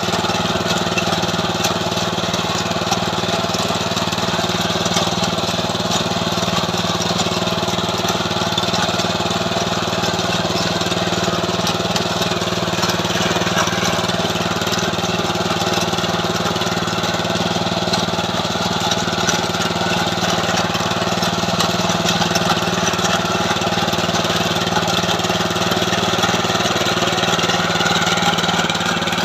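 KB-365 mini tiller's small engine running steadily, its pitch holding level.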